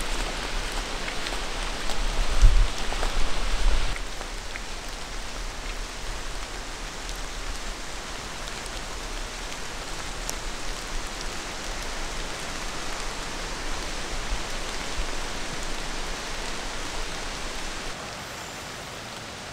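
Steady rain falling, an even hiss with scattered individual drops, and a low rumble between about two and four seconds in.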